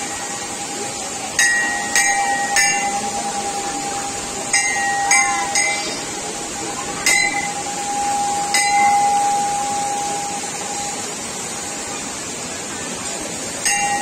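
Brass temple bells struck by hand, about ten sharp rings at irregular intervals, each ringing on briefly. Behind them a steady rushing noise and a held high tone.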